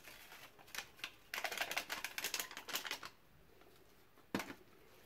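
Rapid run of light taps and crinkles, about a second and a half long, as baking powder is shaken out over crumbly dough in a plastic bowl. A single sharp knock comes near the end.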